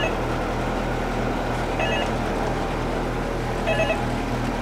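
Boat engine running with a steady low hum and a slow pulsing throb. Over it a telephone ringer gives three short electronic trills, about two seconds apart.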